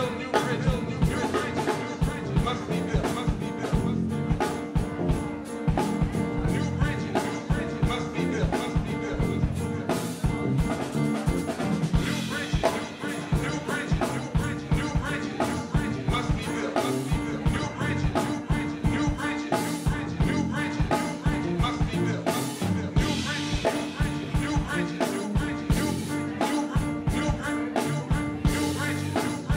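Live band playing a groove on drum kit, electric bass and keyboards, with a busy, steady drum beat throughout.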